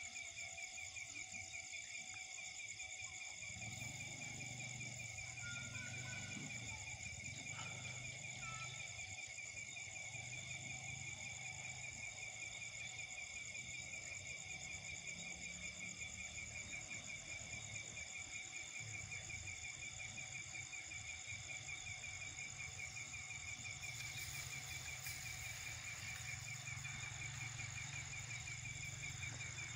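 Steady chorus of night insects, a fine rapid trilling at several high pitches. A faint low engine rumble sits underneath from about three seconds in.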